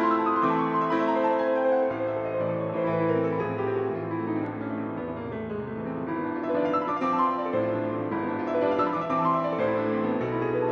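Piano music playing, with a run of notes falling in pitch over the first few seconds.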